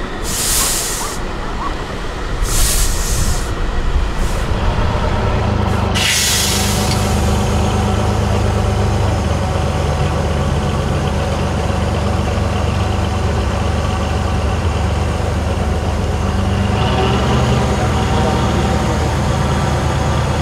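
Diesel engine of an 8x8 off-road trial truck working under load on a climb, a steady low rumble; its revs pick up near the end. In the first few seconds several short hisses sound over the engine.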